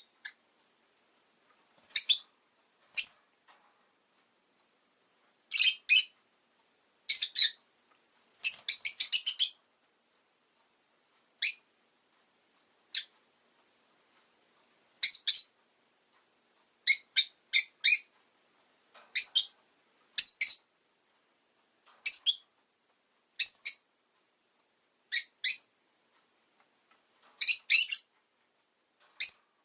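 Rosy-faced lovebird chirping: short, high-pitched chirps, singly or in quick runs of two to six, every second or two with quiet gaps between.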